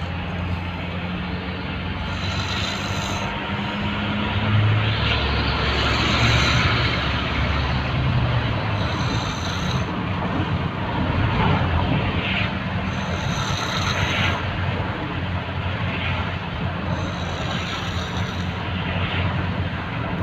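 A person snoring in deep sleep, a noisy breath every couple of seconds, over a steady low motor rumble.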